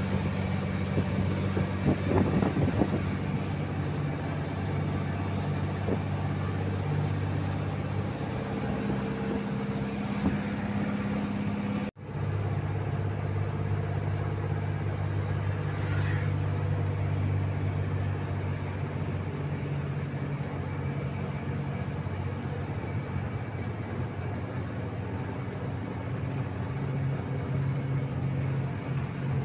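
Steady low drone of a truck's engine with road and tyre noise, heard from inside the cab while driving. The sound drops out for an instant about twelve seconds in.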